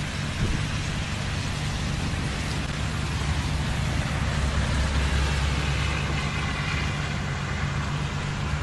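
Steady low rumble of a motor vehicle with an even hiss of rain over it.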